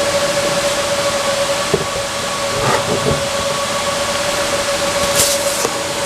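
Steady rush of cooling fans with a constant mid-pitched whine, with a few brief rustles and clicks of handling around two to three seconds in and a short hiss near the end.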